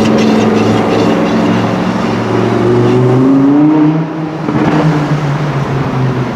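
Supercar engine running under acceleration, its pitch climbing for over a second, then falling away sharply about four seconds in before settling at a lower steady drone.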